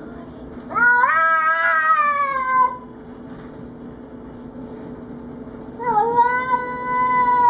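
Domestic cat giving drawn-out territorial threat yowls at an intruding cat. The first yowl comes about a second in, rises, then slides slowly down over about two seconds. The second starts near six seconds and is held at a steady pitch to the end.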